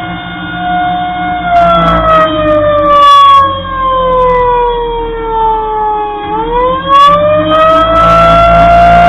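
Federal Signal 2001-130 electromechanical siren sounding a blast of its attack signal. It holds a steady tone, then its pitch falls slowly for several seconds, and near the end it quickly climbs back up to full pitch.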